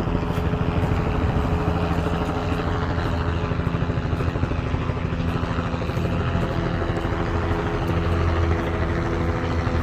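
Helicopter flying nearby: a steady engine and rotor sound with a fast low flutter from the blades.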